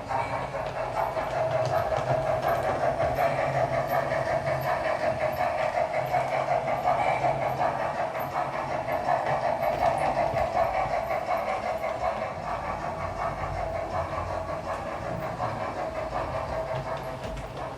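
Steam locomotive running sound from a ZIMO sound decoder in an LGB garden-scale model locomotive, coming through its small onboard speaker: rapid, even chuffing with steam hiss, a little quieter in the last few seconds.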